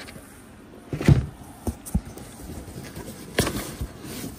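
Cardboard boxes being handled and set down in a shipping carton: a few separate thumps and knocks, the loudest about a second in and another about three and a half seconds in.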